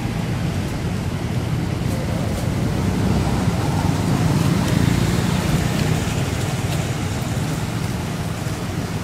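Steady low rumbling background noise with no distinct events, swelling slightly in the middle.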